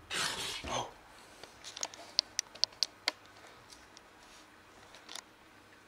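A short rustling noise, then a run of sharp small clicks and crunches: cats chewing dry kibble.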